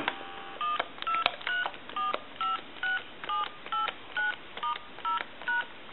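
Touch-tone keypad of an AT&T 210 Trimline phone dialing: a run of about a dozen short two-tone beeps, two or three a second, as key after key is pressed to check the repaired keypad.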